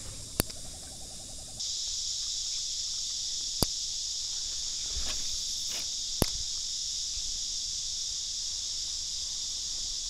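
A steady, high-pitched insect chorus, which gets suddenly louder about a second and a half in. Three sharp clicks, a few seconds apart, stand out over it.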